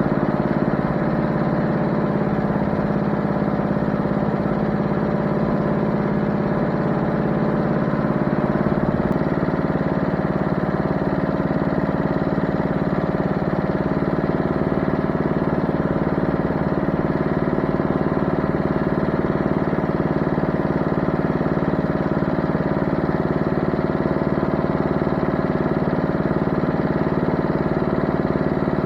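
An engine running steadily, its note shifting slightly about nine seconds in.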